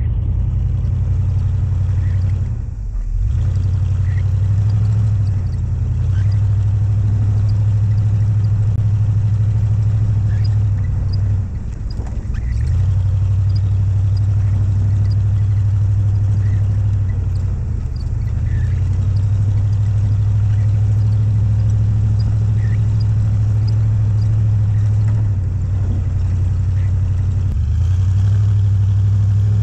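Four-wheel-drive vehicle's engine running steadily under load through deep snow, with its note dipping briefly a few times, most clearly about 3 and 12 seconds in.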